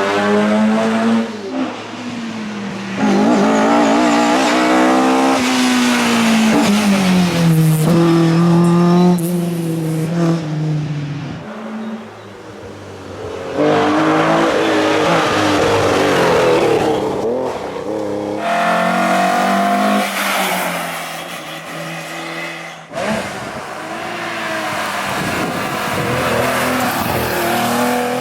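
Classic sports and racing car engines revving hard as several cars pass one after another, the engine pitch climbing and dropping with each acceleration and gear change.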